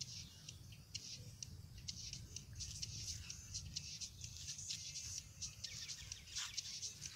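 Birds chirping, many short high chirps in quick succession, over a steady low rumble.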